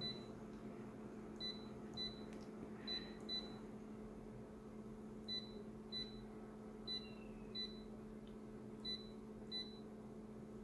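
Photocopier touch-panel key beeps: a short high beep at each tap, about ten of them, irregularly spaced, over a steady low hum.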